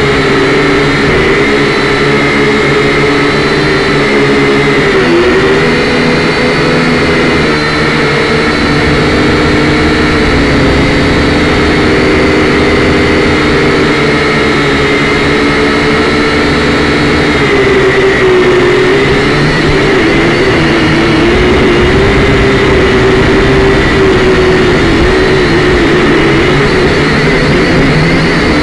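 Syma X5C-1 quadcopter's four small brushed motors and propellers whining steadily in flight, heard close up through the drone's own camera microphone. The pitch wavers briefly about five seconds in and again about two-thirds of the way through, as the throttle is adjusted.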